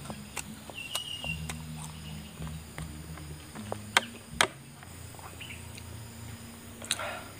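Sharp taps and clicks from handling a raw banana blossom and dipping it into a bowl of sauce, the two loudest close together about four seconds in. Underneath is a low, uneven hum, with a brief high chirp about a second in.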